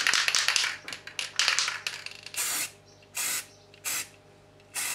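Aerosol can of satin black spray paint hissing as it coats a motorcycle brake master cylinder: a longer, uneven spell of spraying, then four short bursts under a second apart.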